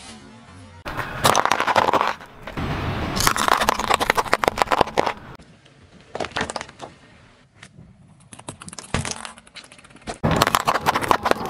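A car tyre rolling over and crushing plastic objects on asphalt: a packet and a hard plastic case crack and crunch under the wheel. The crushing comes as several separate bursts of crackling, the loudest in the first half and again at the very end.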